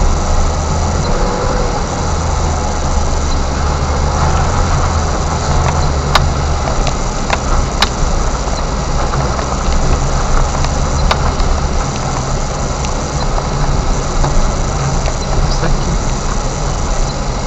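Car driving slowly along a rough dirt road, heard from inside the cabin: a steady low engine hum with road rumble, and a few sharp clicks and knocks partway through.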